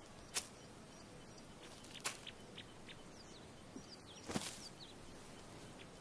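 Faint outdoor field ambience: a steady low hiss with three soft knocks, about half a second, two seconds and four and a half seconds in, the last the loudest, and a few faint, short high bird chirps.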